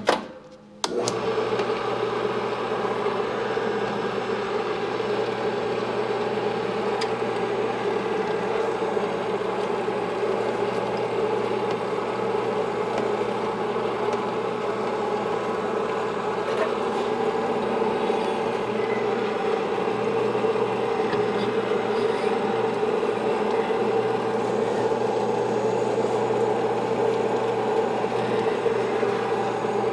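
Sunnen honing machine switched on about a second in, then running with a steady, even hum as the stones are trued.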